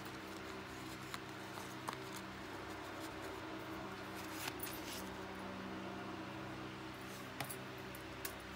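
Faint rustling and a few light clicks as fresh rosemary sprigs are handled and laid onto parchment paper, over a steady low background hum.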